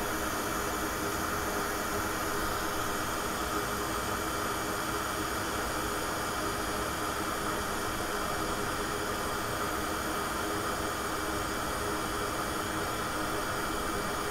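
Steady hiss like a fan or blowing air, with a few faint steady hum tones under it, unchanging throughout.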